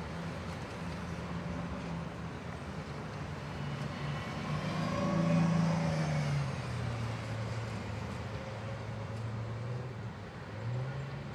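A motor vehicle passing by: a steady engine hum that swells to its loudest about five or six seconds in, then drops in pitch as it fades.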